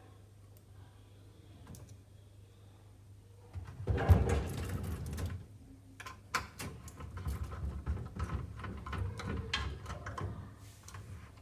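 Handling of a DVR's metal case while screws are driven into the hard disk through holes underneath. A scraping, rubbing stretch starts about four seconds in, followed by a run of light clicks and knocks, over a low steady hum.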